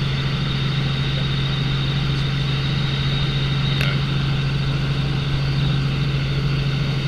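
Helicopter cabin noise: the engine and rotors make a steady low drone with a fainter high whine above it and constant rushing noise.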